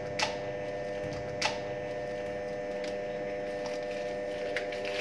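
Steady machinery hum made of several even tones. Over it come a few sharp clicks and clinks from a metal oil-filter housing and its parts being handled; the two loudest are about a quarter second in and about a second and a half in.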